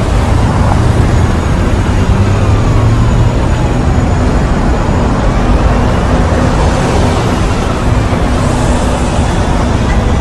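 Dense city road traffic: a steady rumble of car, bus and truck engines and tyre noise, with faint rising and falling whines from passing vehicles.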